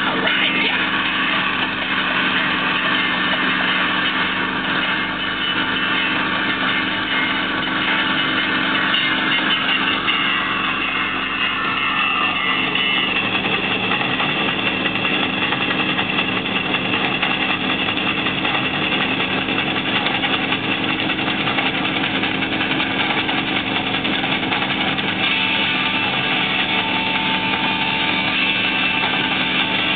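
Tow boat's engine running steadily at speed, with the rush of its wake and spray.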